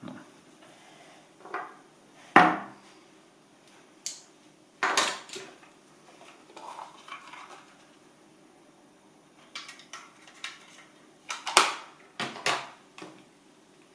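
Irregular knocks and clatter of hard objects being handled: about a dozen sharp sounds at uneven intervals, the loudest about two and a half seconds in and again near the end.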